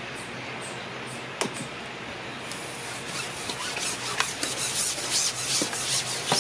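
Rubbing and scraping handling noise as the fishing pole is drawn back: a single click about a second and a half in, then a run of scratchy rustles that grows busier toward the end.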